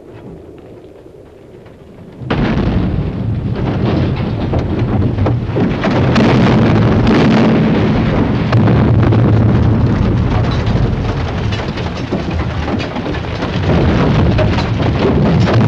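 Pyrotechnic explosives going off on a falling stunt truck: a sudden loud blast about two seconds in, then a continuous rumbling, crackling roar of fire and debris that swells again near the end.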